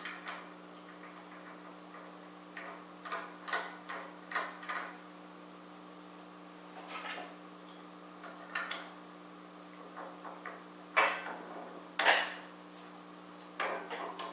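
Irregular metal clinks and clanks as a beam trolley is fitted and adjusted by hand on a steel gantry crane beam, the two loudest knocks coming close together near the end. A steady low hum runs underneath.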